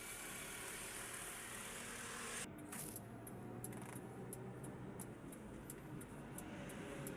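Scooter running with a faint steady hum; about two and a half seconds in the sound changes abruptly, and irregular light metallic clicking and rattling follows.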